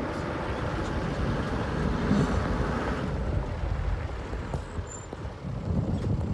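Wind buffeting the microphone: an uneven, gusty low rumble, with a fainter hiss over it during the first three seconds.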